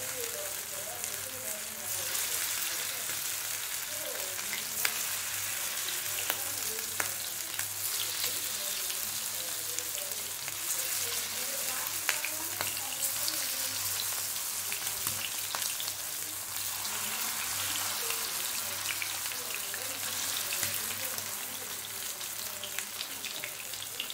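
Cornflour-and-maida-coated chicken pieces deep-frying in hot oil in a non-stick pan: a steady sizzle full of fine crackles and occasional sharper pops. The sizzle grows louder about two seconds in, as more pieces go into the oil.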